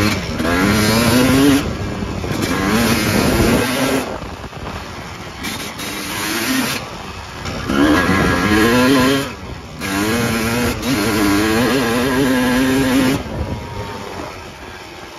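1974 Arctic Cat Cheetah snowmobile's two-stroke twin-cylinder engine revved up and let back down about five times, the pitch climbing with each blip, settling lower near the end.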